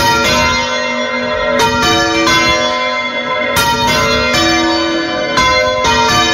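Church bells on wheels swinging full circle, heard close up in the bell chamber: a series of loud strikes at uneven intervals, each clang ringing on and overlapping the next.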